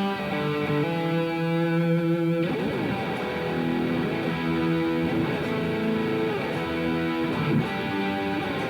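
Electric guitar played through a Revv G3 preamp/distortion pedal: distorted chords and notes held and let ring, with a change of chord about two and a half seconds in.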